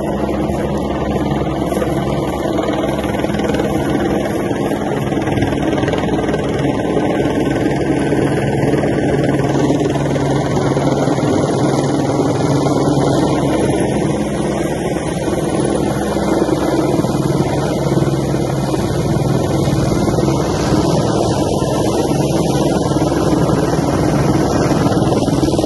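Helicopter hovering low overhead: loud, steady rotor and turbine noise with a constant low throb.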